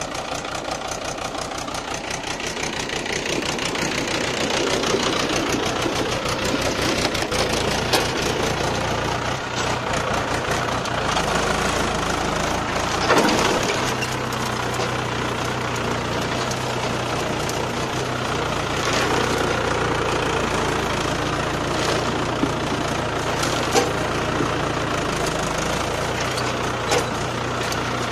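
Mahindra 575 DI tractor's four-cylinder diesel engine running, at first slow and evenly knocking, then louder from about four seconds in and holding a steady working note as it pulls a two-bottom mouldboard plough through dry soil. A few short sharp knocks stand out over it.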